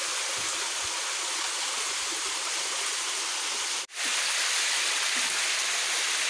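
Small rocky stream cascading over boulders, a steady rush of water, cut off briefly just before four seconds in.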